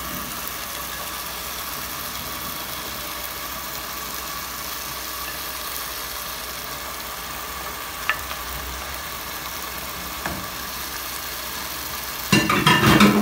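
Chanterelle mushrooms frying in oil in a pot, a steady sizzling hiss, with two light knocks about 8 and 10 seconds in. Near the end a much louder burst of sizzling and clatter starts.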